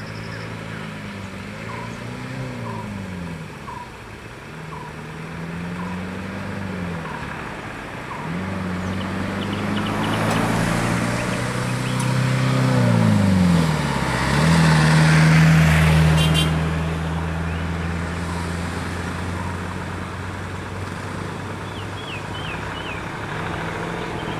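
Motor vehicle engines idling and revving in stopped traffic, their pitch rising and falling repeatedly, swelling into a louder surge of engine noise around the middle and settling into a steady drone. Faint short chirps come near the start and again near the end.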